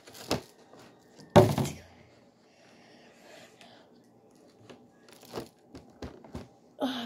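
Handling noise from plastic food packaging: crinkling plastic and a few sharp clicks and knocks, the loudest a short crackle about one and a half seconds in.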